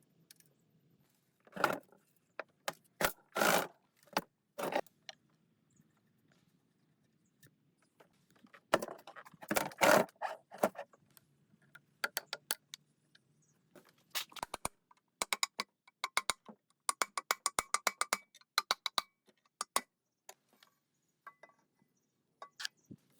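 Metal clinks and scrapes from hand work on metal parts: scattered sharp knocks and scraping in the first half, then a quick run of clicks at about five a second.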